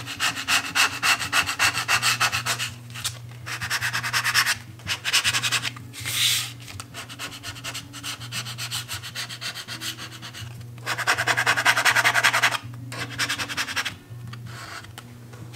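A plastic credit card scraped quickly back and forth over masking tape on a vinyl sheet, pressing the tape down so it sticks to the vinyl. It comes in bursts of rapid rubbing strokes with short pauses between them.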